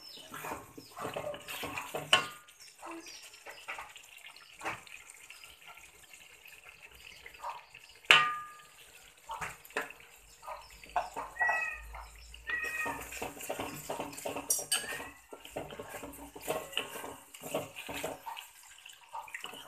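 Wooden spatula and metal spoon scraping and clinking against a metal wok as thick curry paste is stirred. Two sharp metallic clinks stand out, about two seconds and about eight seconds in, the second one ringing briefly.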